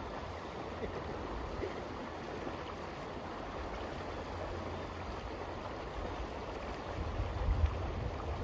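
Brook water running with a steady rush. Low wind gusts buffet the microphone near the end.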